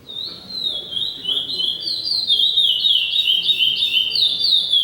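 A songbird singing a long, fast, unbroken run of short high notes, each sliding down in pitch. It starts suddenly right at the beginning and grows louder over the first couple of seconds.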